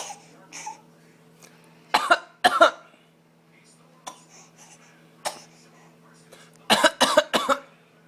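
A person putting on a cough: two loud coughs about two seconds in, smaller coughs and throat sounds, then a quick run of hacking coughs near the end.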